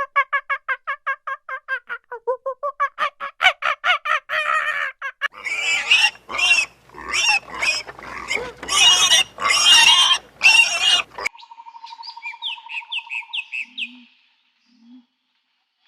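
Primate calling: a run of rhythmic hoots that quicken and climb in pitch for about five seconds, building into loud, harsh screams. Near the end the screams stop and a different steady buzzing tone with short rising chirps follows.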